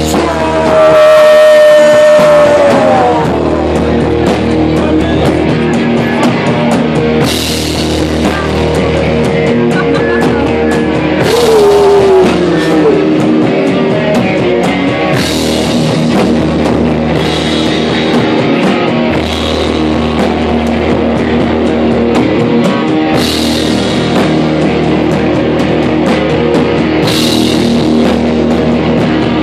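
Hardcore punk band playing loud and live: distorted guitars, bass and drum kit, with crash cymbal hits every few seconds. A held note slides down in pitch near the start and again about halfway through.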